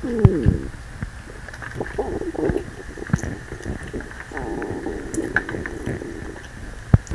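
A full human stomach rumbling and gurgling in about three bouts of wavering, bubbly gurgles, the first falling in pitch. It is digesting a meal that was eaten too fast. A short thump comes just before the end.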